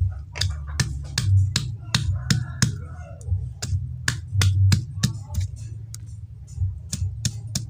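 Stone pestle pounding and crushing garlic cloves on a flat stone mortar (Indonesian cobek and ulekan), sharp stone-on-stone knocks about three a second, over a steady low hum.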